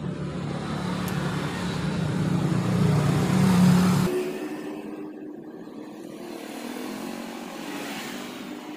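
A motor vehicle engine running, growing louder and then cutting off abruptly about four seconds in, followed by a quieter, steady engine hum.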